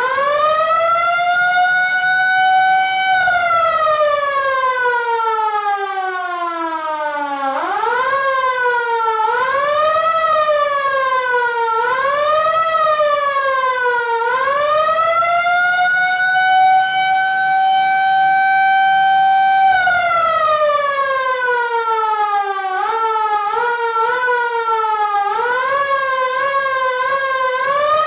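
Small Federal Signal IC-S2S4 siren running a test sequence. It holds a steady high tone that slides down in pitch, then gives a short fast wail of quick rises and falls, climbs again to a steady alert tone held about five seconds, and slides back down. Near the end comes a string of short growls, and the pitch starts climbing again.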